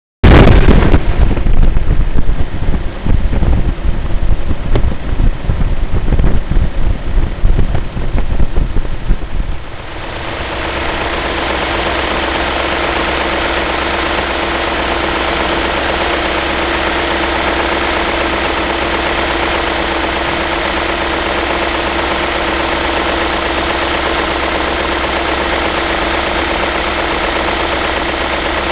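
BMW E39 M5's S62 V8 engine running cold with a rattle that the owner puts down to the VANOS. For about the first ten seconds a loud, uneven low rumble dominates. From about ten seconds in the engine runs steadily, with a constant note.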